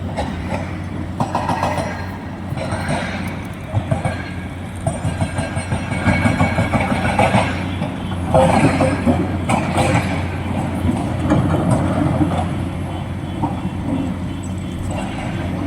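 Excavator's diesel engine running steadily under load, with irregular bursts of clatter and scraping as the bucket digs and dumps material into a truck, the loudest about eight to ten seconds in.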